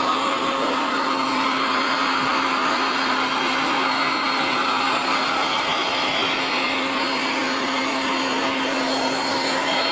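Electric air pump running steadily with a constant hum, inflating a Bestway airbed.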